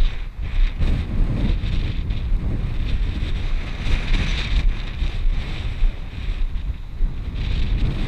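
Wind buffeting the camera's microphone, an uneven low rumble that rises and falls in gusts.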